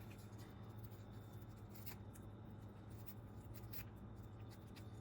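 A few faint, scattered snips and rustles of scissors cutting away hair wound tightly around a Roomba's brush, over a steady low hum.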